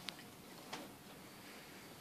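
Quiet, faint rustling and clicks from two dogs mouthing and tugging a plush toy on carpet, with two brief sharp clicks, one just after the start and one about three-quarters of a second in.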